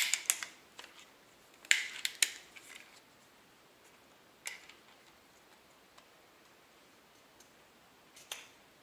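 Sharp metallic clicks and clacks of AR-15 lower receiver and buffer tube parts being handled and fitted together. There is a quick cluster of clicks at the start, another cluster about two seconds in, a single click about four and a half seconds in and one more near the end.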